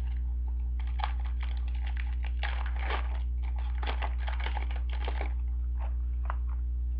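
Trading cards and a pack wrapper being handled: a few seconds of dense crinkling and flicking, with a steady low electrical hum underneath.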